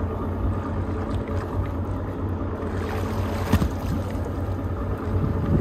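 Boat engine idling steadily with wind buffeting the microphone, and a single sharp click about three and a half seconds in.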